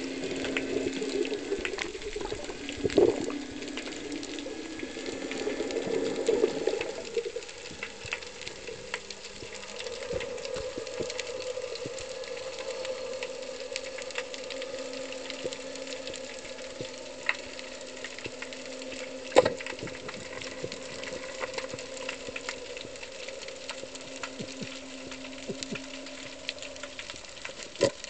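Underwater sound as picked up by a submerged camera: a constant crackling of fine clicks over a faint steady hum, with a few louder sharp knocks, about three seconds in, around two-thirds of the way through and near the end.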